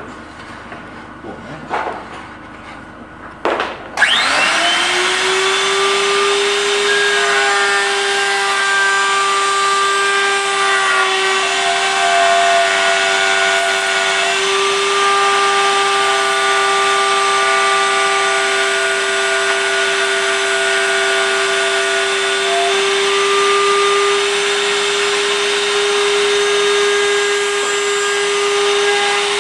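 A few knocks, then about four seconds in a trim router switches on and spins up within a second to a steady high whine. It keeps running at speed over a loud rushing noise as it cuts wood along a template.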